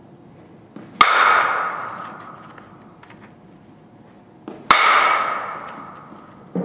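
Softball bat striking pitched softballs twice, each hit a sharp ping that rings on and dies away over about a second, with a faint click just before each hit.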